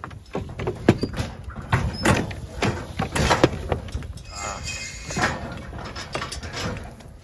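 Sheep being handled through a metal pen or race for pregnancy scanning: irregular knocks, rattles and hoof clatter on metal gates, the loudest knocks about one, two and three and a half seconds in.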